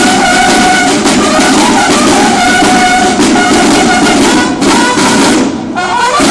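Mexican banda de guerra playing: bugles sounding held notes over drumming. There is a brief dip in the playing about five and a half seconds in, before it picks up again.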